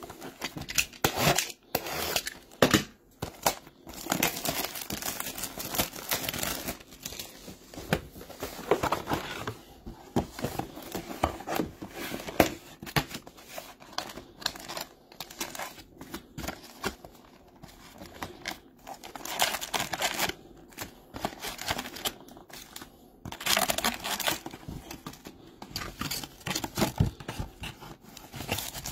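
A Topps Chrome hobby box being torn open and its foil card packs crinkling as they are pulled out and laid on a table, in irregular bursts of tearing and rustling.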